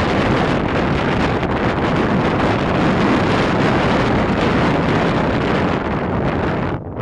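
Strong storm wind blowing over the microphone as a loud, steady rush with a heavy low rumble.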